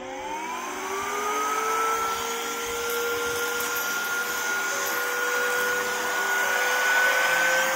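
Cordless electric air duster, a 45,000 rpm mini blower, spinning up with a rising whine over about the first second and a half. It then runs steadily on its low setting with a rush of air, the pitch creeping slightly higher near the end.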